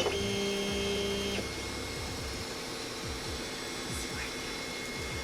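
JGMaker Magic 3D printer's stepper motors running an auto-home move: a steady pitched motor whine for about a second and a half after a click, then a quieter steady hum.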